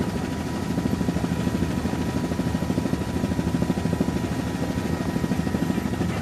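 Helicopter running with its rotor blades beating in a fast, even chop, over a faint steady whine.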